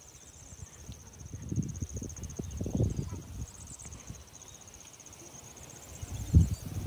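Insects, crickets by their sound, trilling steadily: a fast, finely pulsed high trill. Low rumbles on the microphone swell about two to three seconds in, and the loudest comes just after six seconds.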